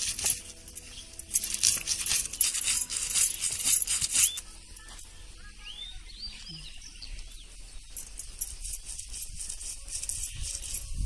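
A stone roller scraped back and forth over a grooved stone grinding slab (pata), grinding wet coconut, garlic and spices into a fine masala paste: rapid gritty rasping strokes for about the first four seconds, then fainter strokes.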